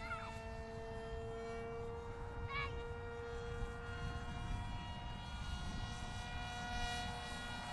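Electric motor and propeller of a cardboard RC jet whining steadily in flight, its pitch drifting slightly, over a low rumble of wind on the microphone. A brief short chirp comes about two and a half seconds in.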